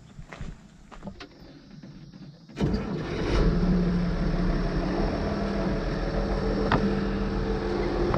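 A few light knocks and clicks, then about two and a half seconds in the 1979 IH 1086 tractor's turbocharged six-cylinder diesel fires up and settles into a steady idle, started to check the new transmission oil cooler lines for leaks.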